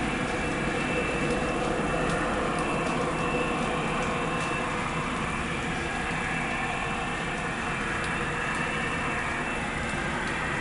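An unexplained steady, continuous roar, like a distant jet turbine or heavy highway traffic, with a thin high whine running through it.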